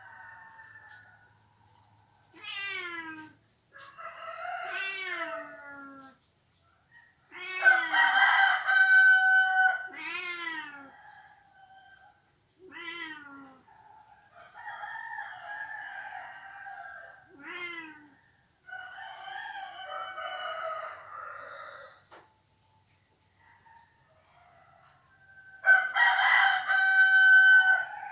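A rooster crowing twice, each crow about two seconds long and the loudest sound: once about a quarter of the way in and again near the end. Between the crows come several shorter calls that fall in pitch, over a steady high hiss.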